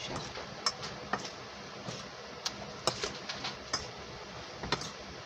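Raw potato strips being tossed by hand with cornstarch in a stainless steel bowl: irregular light clicks and taps of the strips and fingers against the metal, a few a second, over a steady hiss.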